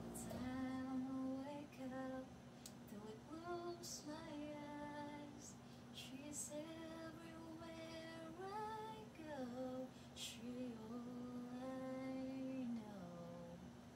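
A woman singing a slow song into a handheld Bluetooth karaoke microphone, holding long notes and gliding between them.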